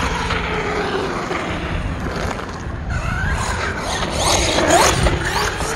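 ARRMA Notorious RC stunt truck's brushless motor whining, rising and falling in pitch as the throttle is worked, with the sharpest rising whines about four to five seconds in.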